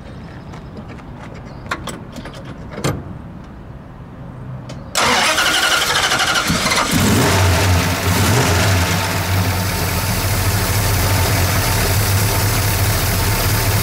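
A 1967 Dodge Coronet R/T's 426 Hemi V8 being started: after a couple of clicks, the starter cranks for about two seconds from about five seconds in, then the engine fires and runs on at idle.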